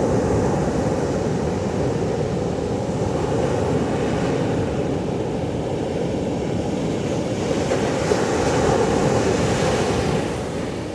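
Sea waves washing onto the shore over a constant deep rumble of surf. A wave swells up from about four seconds in, is loudest near nine seconds, and falls away near the end.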